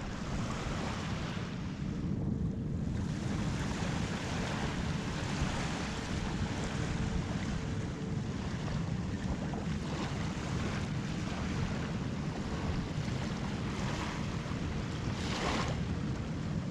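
Surf washing steadily onto a beach, with wind buffeting the microphone.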